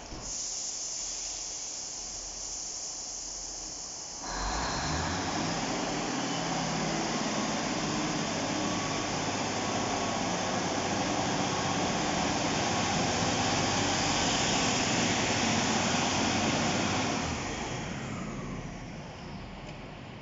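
British Rail Class 153 diesel railcar pulling away from the platform. A steady hiss starts at the outset. About four seconds in, the diesel engine opens up and its note rises as the unit accelerates away, then it fades near the end as the train leaves.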